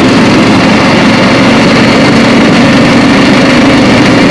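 A small off-road vehicle's engine running at a steady speed as it travels, a loud, even drone that does not change.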